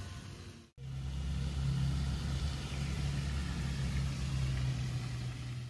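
A steady low motor hum under an even hiss, starting after a short break about a second in.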